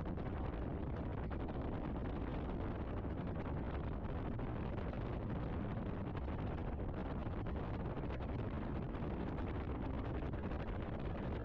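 Steady tyre and wind noise of a car driving, an even rumble with no distinct events.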